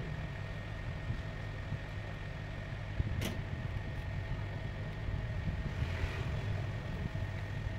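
Hot-air rework gun blowing steadily, a low hum with a faint steady high whine, heating a phone's glued back glass to soften the adhesive. A single sharp click about three seconds in.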